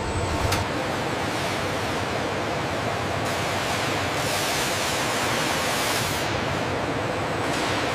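A steady, even hiss of noise, with a brief sharp tick about half a second in.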